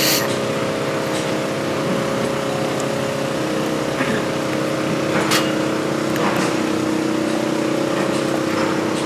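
A steady, unchanging engine hum, like a vehicle idling, with a few sharp clicks over it.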